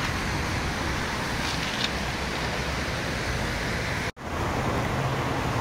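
Steady outdoor background noise, an even hiss with no distinct event. The sound cuts out for a split second about four seconds in, and a low steady hum comes in after it.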